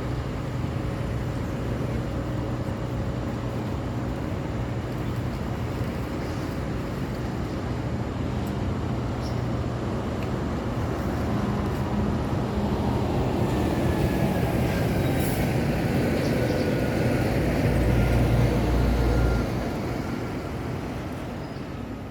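City road traffic with heavy vehicles: engines running and tyres on the road, building up to a loud close pass about nineteen seconds in, then falling away. A faint high whine glides slowly down in the second half.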